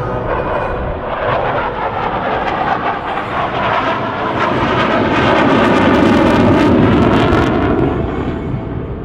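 A Chengdu J-10 fighter jet's engine passing by. Its rushing noise grows louder to a peak about six to seven seconds in, then dies away as the jet passes.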